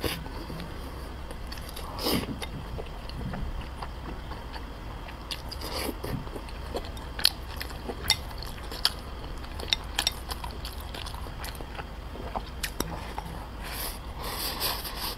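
Close-miked eating sounds: chewing and mouth noises from rice mixed with red-braised pork sauce, with many short sharp clicks of chopsticks on a porcelain bowl.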